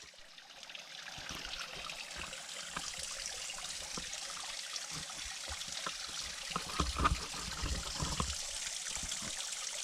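Running water of a small creek or cascade, a steady rushing hiss that grows louder over the first couple of seconds. A few soft low thumps come about seven to eight seconds in.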